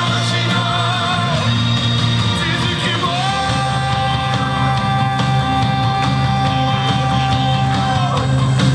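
Recorded pop song playing, with a singer holding one long high note from about three seconds in until near the end, over steady band accompaniment.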